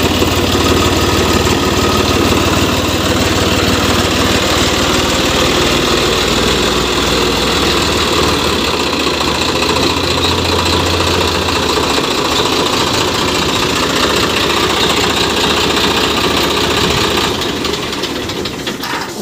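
Swaraj 744 FE tractor's three-cylinder diesel engine running steadily at low speed while the tractor is reversed. The deep engine note shifts about halfway through, and the sound grows quieter near the end.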